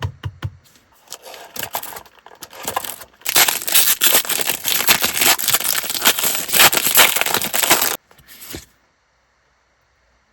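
Plastic wrapping of a Pokémon card pack being handled and torn open: a few light taps and rustles, then about five seconds of loud, dense crinkling and tearing that cuts off suddenly, with one short crinkle after it.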